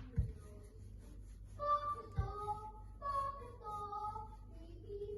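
A child singing a few held, wavering notes, with two dull thumps, one just after the start and one about two seconds in.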